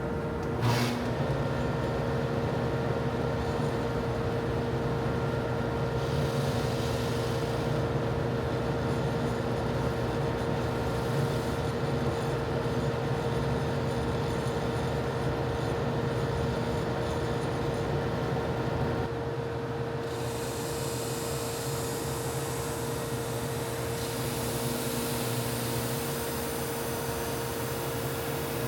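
Drum sander running with a steady motor hum and whine. At times, and most of all in the last third, a higher hiss of abrasive on wood joins it as the wooden board is fed through.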